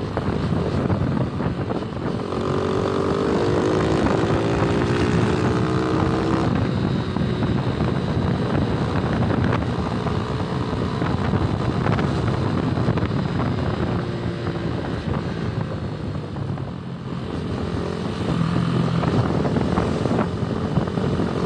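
Motorcycle engine running while riding at road speed, with wind rushing over a helmet-mounted phone microphone. About three seconds in, an engine note climbs in pitch for a few seconds.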